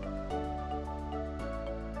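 Background music: soft, steady instrumental with sustained chords that change about every second and a light beat.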